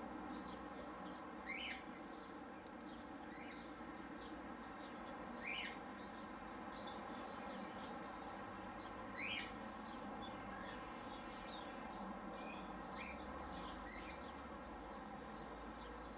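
Small birds chirping: a short call repeats about every four seconds over many faint, high tweets, with one sharp, loud chirp near the end.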